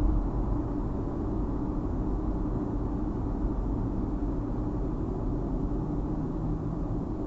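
Steady low road and engine rumble inside a moving car's cabin, as picked up by a dash cam's built-in microphone.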